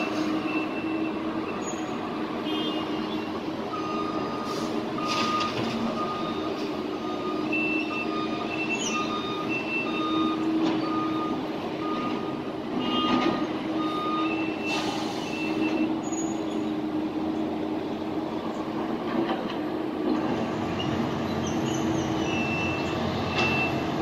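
Heavy road-construction machinery running steadily, with a backup alarm beeping at an even pace that starts a few seconds in and stops about halfway through, and a second, higher-pitched beeping coming and going.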